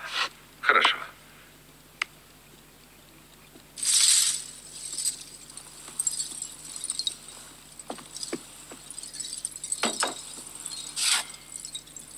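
A short hissing whoosh about four seconds in, then light clinking and rattling of hard objects as they are carried and set down.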